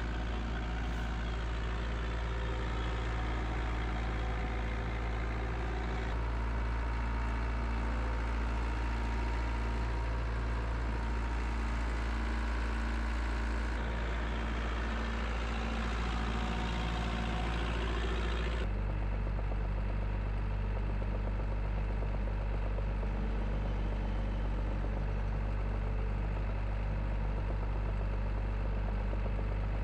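Morooka MK70 rubber-tracked crawler tractor's diesel engine running steadily as the machine works across the field. The tone changes abruptly a few times.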